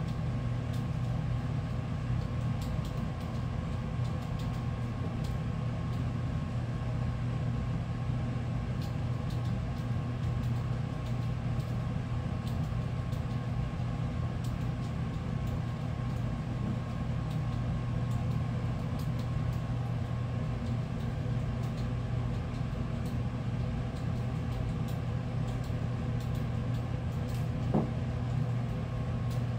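Steady low mechanical hum with a faint steady whine above it, unchanging throughout, with a few faint ticks and one brief knock near the end.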